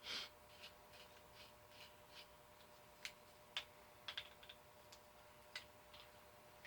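Near silence with a faint steady hum and a scattering of faint, irregular small clicks and taps.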